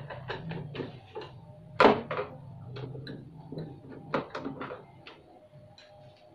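A screwdriver backing screws out of a CRT television's plastic back cover: a run of irregular clicks and plastic taps, the loudest knock about two seconds in, over a low steady hum. The taps thin out near the end.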